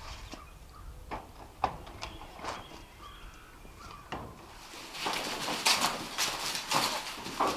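Goats bleating in short calls, with a sharp knock about one and a half seconds in. From about four and a half seconds a stretch of rustling and scuffling noise follows.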